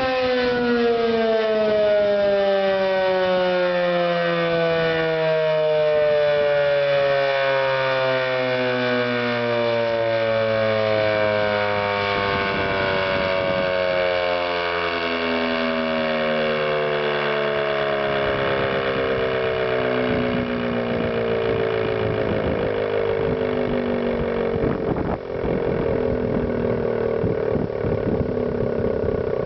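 ACA P-15 tornado siren winding down: many tones sound together and all fall slowly and steadily in pitch while the volume stays strong.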